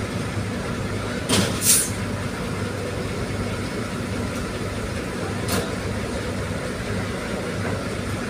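Ferry's diesel engine running with a steady low drone. Short hissing bursts come twice about a second and a half in and once more about five and a half seconds in.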